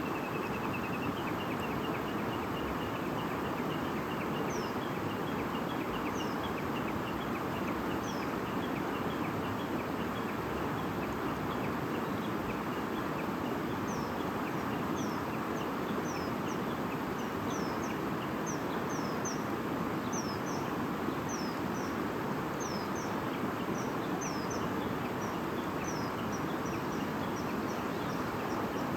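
A stream babbling steadily, with small birds singing over it: short high downward-slurred chirps, a few at first and coming thick and fast in the second half, above a fast run of quick lower notes.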